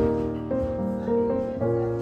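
Background music led by piano, its notes changing about every half second.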